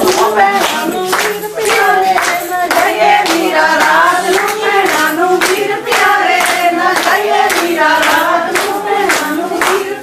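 Women singing Punjabi boliyan for giddha, with the group clapping hands in a steady beat of about two to three claps a second.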